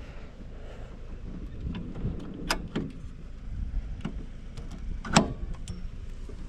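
A handful of separate knocks and clunks from camper trailer gear being packed away, the loudest a sharp bang about five seconds in, over a low rumble of wind.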